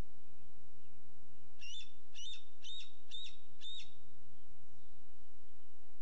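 Bald eagle calling: a series of five high notes about half a second apart, over a steady low hum.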